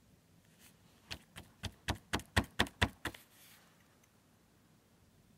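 Small carburetor part knocked repeatedly against a hard surface to shake out dirt: about nine sharp taps, roughly four a second, over about two seconds.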